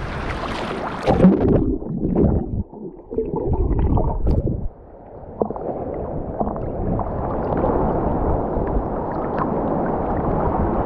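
Seawater washing over a camera held at the surface, the sound turning muffled as the camera dips under about a second and a half in. Uneven knocks and swishes of water follow, then a steady muffled wash.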